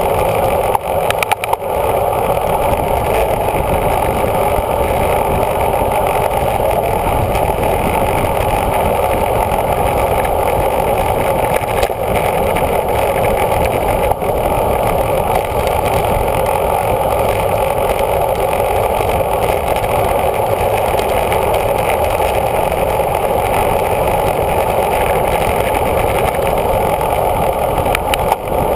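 Steady wind rush buffeting a bike-mounted camera's microphone on a fast road descent at 20 to 30 mph, with a couple of brief knocks about a second in and near the end.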